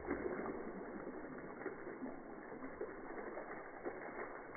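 Water poured from a jug over a dog's back, splashing and dripping onto a concrete floor as a dense, crackly patter.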